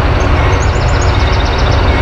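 Approaching diesel locomotive of a loaded coal train, a steady low rumble between horn blasts, with a quick series of high chirps in the first second and a half.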